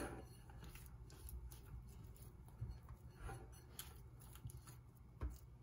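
Faint handling sounds of soft dough being pulled off in pieces from a glass bowl and set on a plate: light scattered ticks and rustles, with a soft thump near the end.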